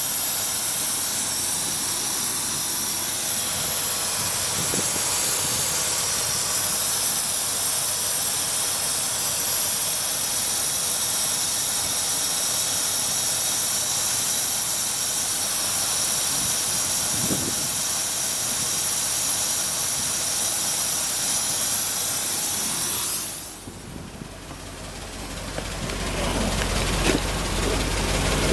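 Engine fitted with a GEET fuel processor idling, with a steady hiss. Near the end the hiss cuts off sharply and the sound drops, then a low rumble builds back up.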